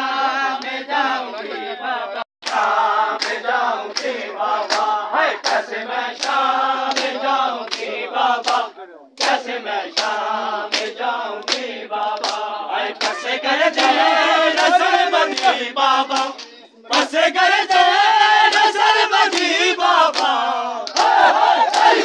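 Crowd of mourners performing matam: bare-handed chest-beating slaps about two a second, under men's voices chanting a noha together. The sound cuts out briefly a few times.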